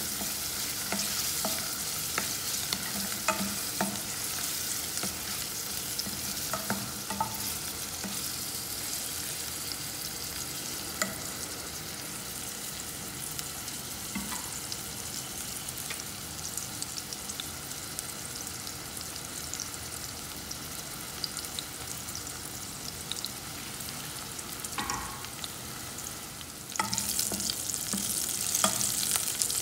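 Sliced shallots, garlic and green chili sizzling in hot oil in a saucepan, being sautéed until fragrant, while a metal spoon stirs them with light scrapes and taps against the pan. The sizzle gets louder about 27 seconds in.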